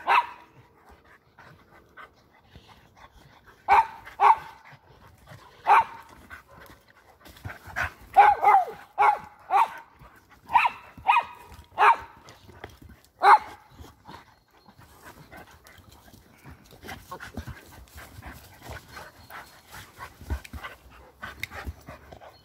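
Two dogs play-fighting. About a dozen short, sharp barks come singly and in quick runs from about four to thirteen seconds in, then give way to quieter scuffling of paws on leaf litter.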